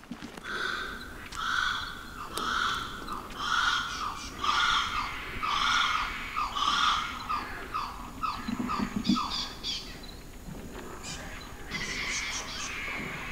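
An animal calling over and over, about a dozen calls in a row, each a short call with a clear pitch. The calls come faster and shorter towards the end of the series.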